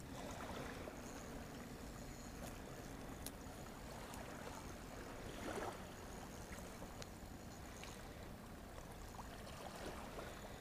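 Faint canal-bank ambience: small waves lapping at the shore over a low steady hum, with a few light clicks and a brief rustle about five and a half seconds in.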